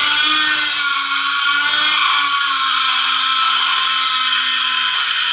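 Handheld die grinder running at high, steady speed as it grinds metal off a front suspension mount to take about 5 millimetres off for clearance.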